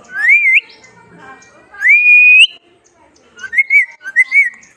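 Loud whistling in four phrases: a short rising, wavering whistle, then a longer one that rises and holds, then two short warbling whistles near the end.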